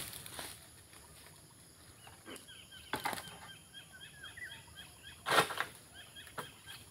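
A pruning pole's blade cutting and scraping at oil palm fronds in the crown: a few short rasping swishes, the loudest about five seconds in. Between the strokes, small birds chirp in quick series.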